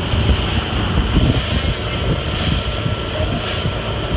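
Wind buffeting the microphone over a motorboat running at speed, with the steady rush of its wake.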